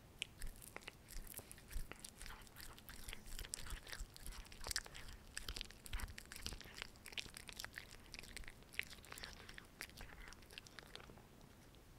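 Russian Blue cat chewing and biting pieces of baked potato, a quick irregular run of crisp little clicks that thins out in the last second.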